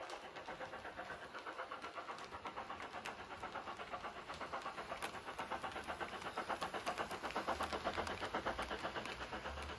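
Sound-fitted model steam locomotive chuffing with a fast, even beat of about six chuffs a second, getting louder as it approaches and passes, loudest near the end.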